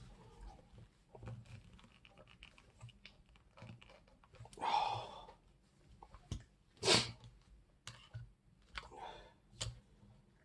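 Small plastic clicks, taps and scrapes from hands working at a stuck shower solenoid valve and its plastic inlet-valve fittings. There is a brief rushing scrape about halfway through and a sharp loud click about two-thirds in.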